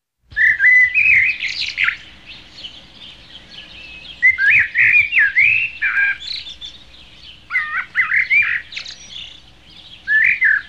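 A songbird singing in bursts of rapid chirps and sliding whistles, one burst about every three seconds.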